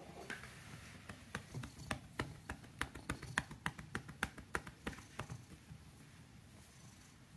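Hands patting a cat's back with quick, light taps, about three or four a second, stopping about two-thirds of the way through.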